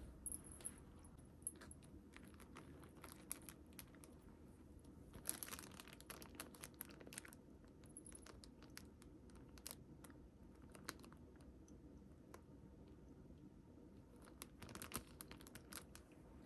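Faint crinkling and small clicks of handling during an unboxing, coming in scattered clusters, busiest about five to seven seconds in and again near the end.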